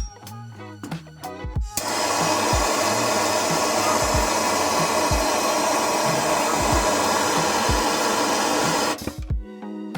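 Background music with a steady beat. From about two seconds in until about a second before the end, a loud, steady rushing noise from a tool plays over it and cuts off suddenly.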